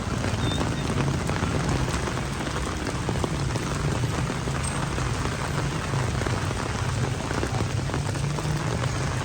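Heavy rain falling, a dense steady hiss of drops, over a low steady rumble.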